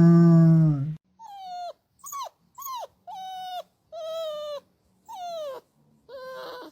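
A dog vocalising: a loud, low howl that ends about a second in, then about seven short, high whines, each falling in pitch at its end, with brief silences between them.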